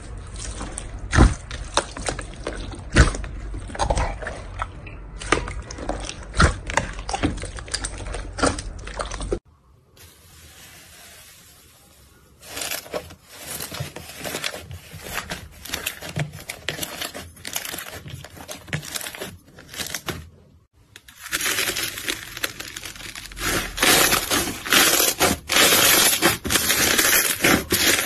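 Slime being worked by hand in three short takes. First, blue slime mixed with small beads is squished in a bowl, giving wet clicks and pops. Then, after a brief pause, a soft fluffy slime is stretched and folded with quieter, sticky crackles. Near the end, fingers pressing into a tub of slime make a louder, dense crackling.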